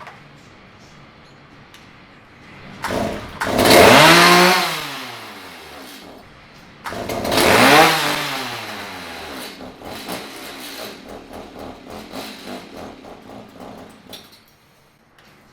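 Stihl MS 290 two-stroke chainsaw engine running on fresh fuel after its clogged fuel line and filter were cleared. It is revved twice, the pitch falling back after each rev, then it idles unevenly and stops near the end.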